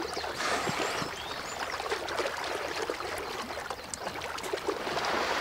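Water sloshing and splashing irregularly as wild boar wade and root for water plants in a shallow forest pond.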